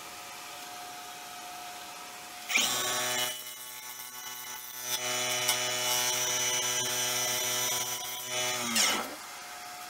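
Nova Galaxi DVR wood lathe motor spinning up about two and a half seconds in and running steadily. From about five seconds a gouge cuts the spinning cedar-and-epoxy-resin bowl blank. Near the end the lathe winds down and stops.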